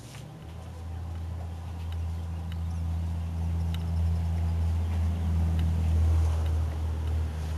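Low, steady engine hum, growing louder over the first few seconds and holding.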